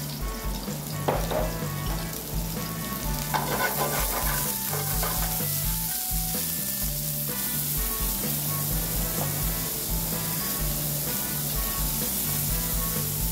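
Shimeji mushrooms and sliced onion sautéing in hot oil in a steel frying pan, sizzling steadily while tongs stir them.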